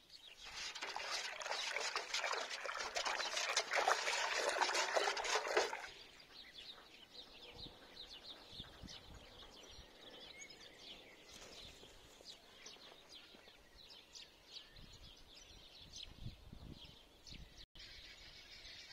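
Water-based fertiliser solution splashing and sloshing in a metal bucket as it is mixed, cutting off suddenly about six seconds in. Then birds chirping faintly over a quiet outdoor background.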